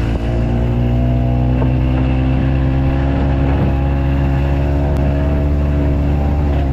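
Harley-Davidson golf car's gasoline engine running steadily, its pitch rising and falling a little.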